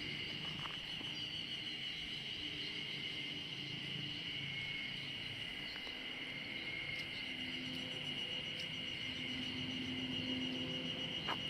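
Insects chirring in a steady, unbroken high drone, with a faint low hum underneath.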